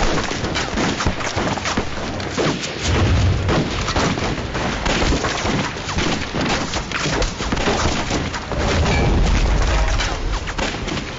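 A gunfight: rapid, irregular gunshots overlapping one another, with a heavy boom about three seconds in and a longer deep rumble about nine seconds in.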